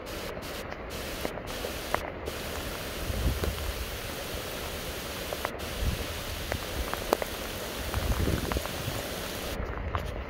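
Steady hiss of storm rain and wind in the trees, with a few low gusts rumbling on the microphone and a few light ticks of drops.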